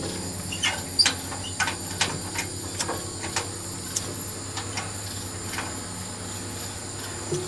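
Liquid-fuel camp stove burner hissing steadily under a cast iron skillet heating oil, with a dozen or so light clicks and taps as cookware is handled on the stove.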